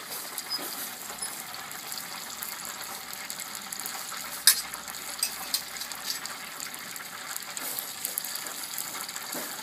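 Hot oil sizzling and crackling steadily in a turkey-fryer pot, with a whole turkey just lifted out and hanging above it; one sharp click about four and a half seconds in.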